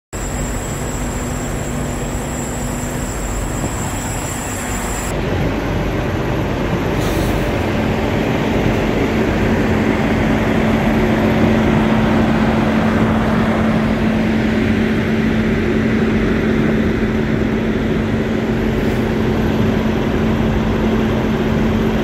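Parked diesel semi trucks idling close by: a steady engine rumble with a low hum, getting a little louder about five seconds in.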